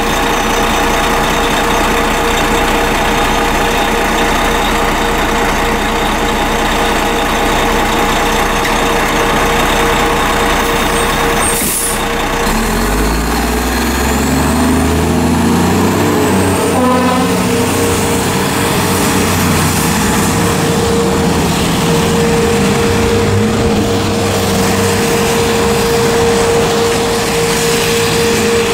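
1998 American LaFrance/LTI 100-foot aerial ladder truck's diesel engine running, with a short sharp air-brake hiss about twelve seconds in. The engine then revs up in pitch for several seconds as the truck pulls away, with a faint rising whine above it, and settles into a steady drone. A steady high tone runs underneath throughout.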